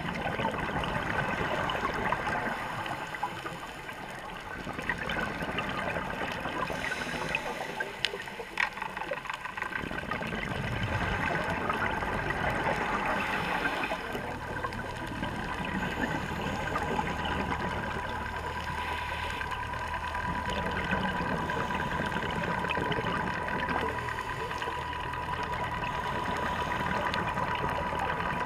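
Underwater ambience heard through a waterproof camera housing: a muffled, steady rushing hiss that swells and fades every few seconds, with a faint steady tone running under it.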